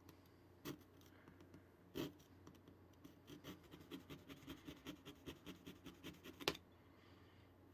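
Knife sawing down through a miniature vanilla-wafer snack burger on a plastic tray: faint scraping strokes, about four a second in the second half, with a few sharp clicks, the sharpest near the end.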